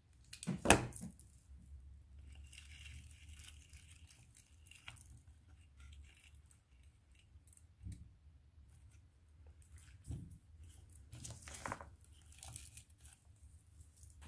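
Hand-handling noise from placing and pressing small bottle-brush fir trees into glue: a sharp knock about a second in, then faint rustling and scattered light clicks.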